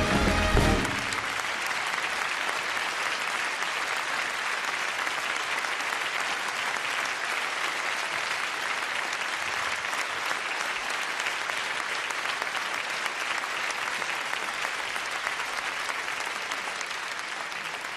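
A large theatre audience applauding, a steady clapping that slowly fades near the end. A live band's music cuts off about a second in.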